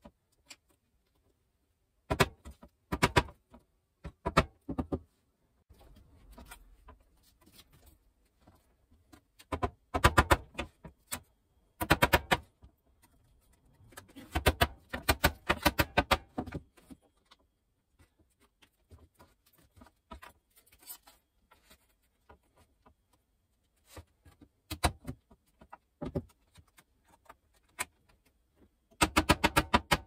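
Mallet tapping laser-cut wooden box parts together: quick runs of light knocks in several bursts, with pauses between them.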